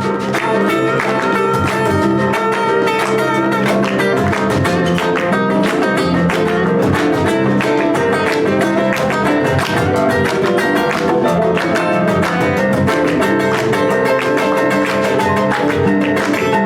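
Live band playing an instrumental passage, with no singing.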